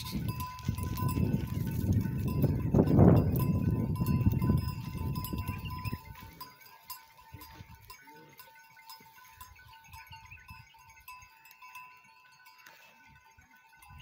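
A large herd of goats trotting over sandy ground with their neck bells clinking. For the first six seconds the herd passes close and its hooves make a loud rumble. It then drops suddenly to faint bell tinkles and scattered ticks as the herd moves away.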